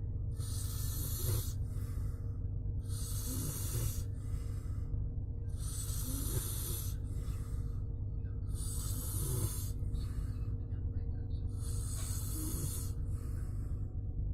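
A person snoring: about five slow breaths, one every three seconds or so, over a steady low hum.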